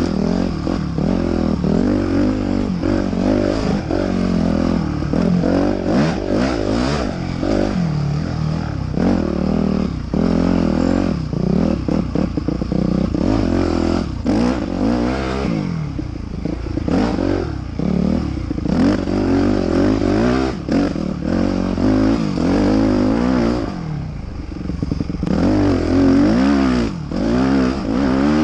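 Motocross dirt bike engine being ridden hard, revving up and dropping off again and again as the throttle is worked. Frequent clattering knocks run through it.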